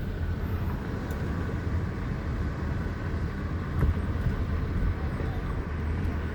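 Vehicle engine and road noise heard from inside the cabin while driving: a steady low rumble.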